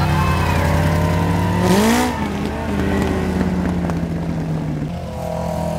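Racing lawn tractor engines running hard, with one engine revving up in a rising glide about two seconds in.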